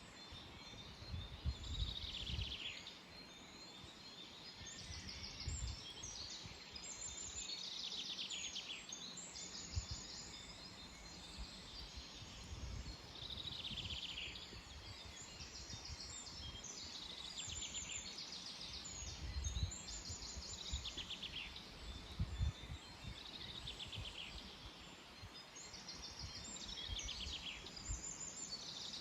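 Songbirds singing short, rapid trilled phrases, repeated every couple of seconds, over a steady outdoor hiss with irregular low rumbles.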